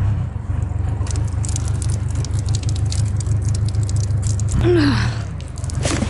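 Small gas engine of a portable band sawmill running steadily, with a fast rattle of clicks over it for a few seconds in the middle.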